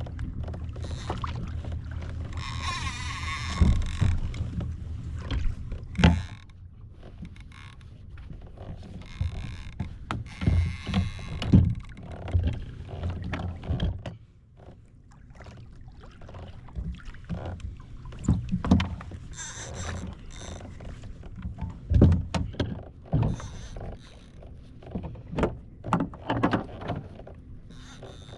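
Fishing kayak on the water: splashing and slapping against the hull, with irregular knocks and thumps on the boat.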